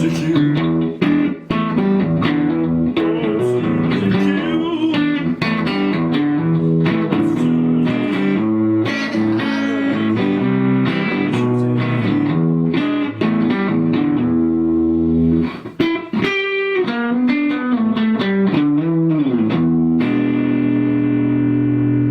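Rickenbacker 325 electric guitar played through an amp: a continuous riff of picked notes and chords, settling on a held chord near the end.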